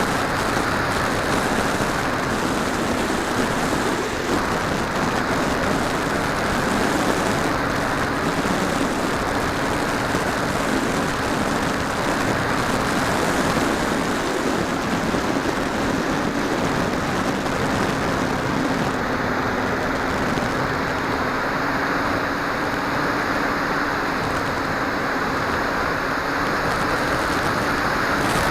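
Steady rush of air with the hum of a model aircraft's motor and propeller, picked up onboard an FPV drone in flight. The hum holds a low pitch that wavers slightly.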